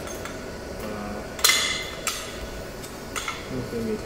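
A sharp metallic knock with a short ringing tail about one and a half seconds in, then a lighter knock and a few faint clinks: aluminium square tube and steel G-clamps being knocked and shifted while the frame is set straight on a welding table.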